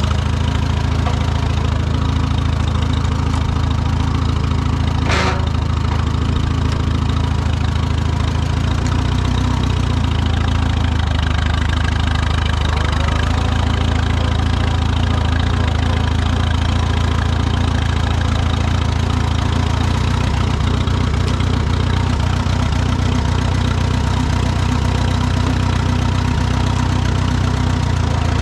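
Tractor engine running steadily, its note shifting slightly about nine seconds in, with a single sharp click about five seconds in.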